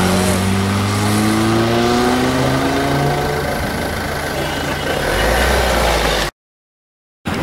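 Motorcycle engine accelerating past and pulling away, its pitch rising steadily for about three and a half seconds, then giving way to a rushing noise. The sound cuts out abruptly about a second before the end.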